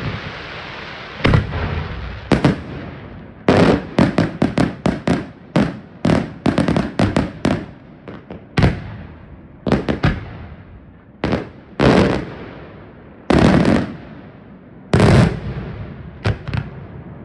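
Aerial firework shells bursting: a dense hiss fades over the first second, then a long run of sharp bangs at irregular spacing, some in quick clusters, each echoing briefly.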